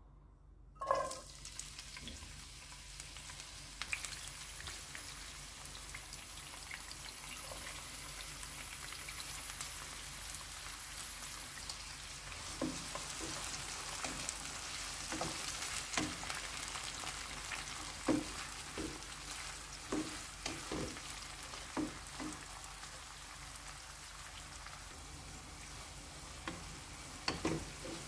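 Chopped green peppers hit hot oil about a second in and start sizzling. The vegetables keep frying steadily in the nonstick pan, and from about halfway a wooden spatula stirs them, knocking and scraping on the pan.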